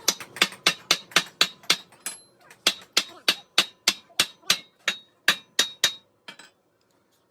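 A hammer striking metal in quick, even blows, about three to four a second, each with a short metallic ring. The blows pause briefly about two seconds in and stop about six seconds in.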